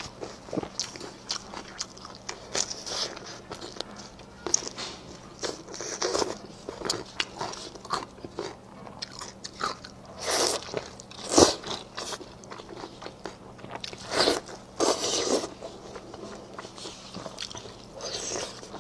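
Close-miked biting and chewing of braised beef ribs: many small mouth clicks, with a few louder bites into the meat in the middle, the loudest about eleven seconds in.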